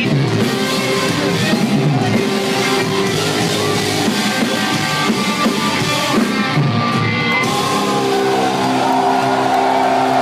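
Loud rock music with a drum kit and guitars playing.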